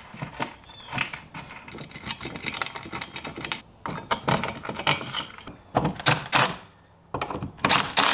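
Small metal clicks and rattles of bolts and washers being fitted into the anchors of a metal wall bracket by hand. Then a cordless drill drives the bolts in, in short bursts near the end.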